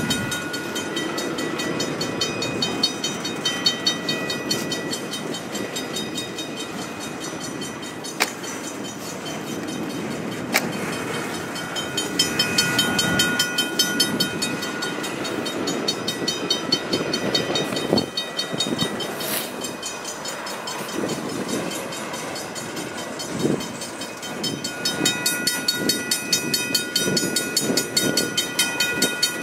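Double-stack intermodal freight cars rolling past at a grade crossing, wheels clattering and knocking over the rails, with steady high ringing tones that come and go. The crossing signal's bell rings throughout.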